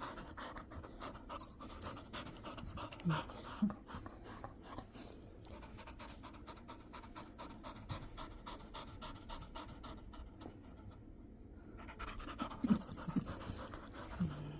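Golden retriever puppy panting rapidly. Short high electronic chirps from the mouse-sound chip inside a cat ball toy come about a second and a half in and again near the end.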